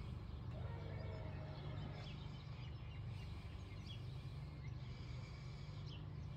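Faint, steady low hum of a Lippert auto-leveling system's jack motors making the fine adjustments that level a travel trailer.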